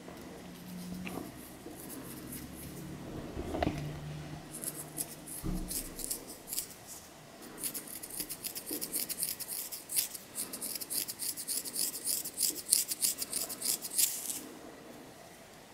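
Long fingernails scratching through hair on a dandruff-flaked scalp: a quick run of short, dry scratching strokes. They are sparse for the first few seconds, then come fast and dense until they stop shortly before the end.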